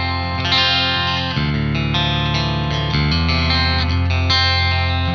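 Electric guitar played through a Fishman Fluence Modern Humbucker Ceramic bridge pickup switched to Voice 3, its single-coil mode: picked chords and notes ring out with a clear, bright tone, a new chord struck about every second.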